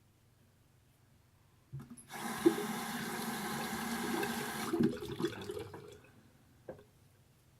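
Tap water running into a sink for about two and a half seconds, with a few sharp knocks during it and as it stops.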